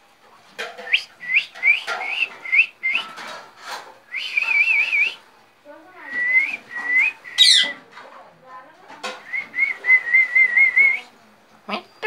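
Young parakeets calling with whistled chirps: a quick series of short notes that hook upward, about three a second, broken by warbling trills and one fast, high rising squeak about seven and a half seconds in.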